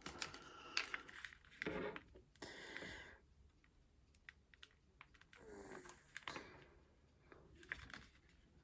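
Faint clicking and scraping of plastic as the case of an Xbox One media remote is pried at along its seam, in short patches with quiet gaps between. The case is not coming apart.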